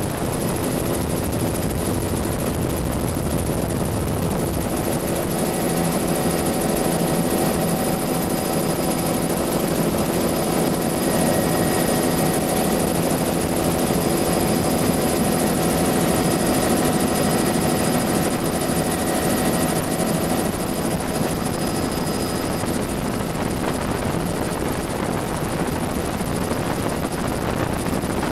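Bell 206 JetRanger helicopter in flight, heard from the front seat of the open-door cabin: a steady turbine whine with several held tones over loud, even rushing noise.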